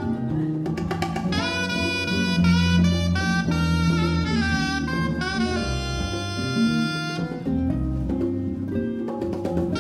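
Live jazz: a saxophone plays a melody line of held and sliding notes over electric bass and acoustic guitar accompaniment.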